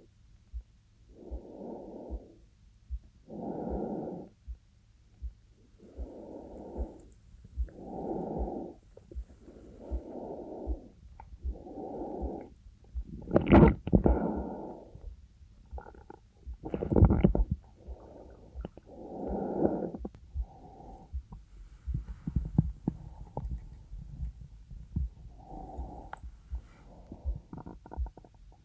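A woman's slow breathing, close-miked, one breath every one and a half to two seconds, with faint low heartbeat thumps underneath. Two louder, sharper sounds come about thirteen and seventeen seconds in, and the breathing grows fainter and less regular after about twenty seconds.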